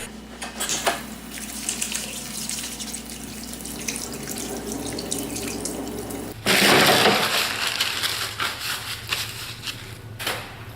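Water running from a bathroom sink tap during hand-washing. It gets suddenly louder a little past halfway, then eases off near the end.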